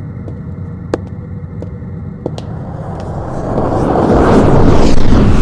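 A low rumbling ambience with a few sharp clicks, then a rushing whoosh sound effect that starts about halfway through and swells until it is loudest near the end. It is a scene-transition effect as the Ghost of Christmas Past carries Scrooge off into the past.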